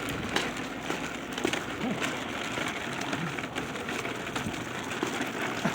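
Steady outdoor noise while walking along a street, with scattered light taps and faint voices in the background.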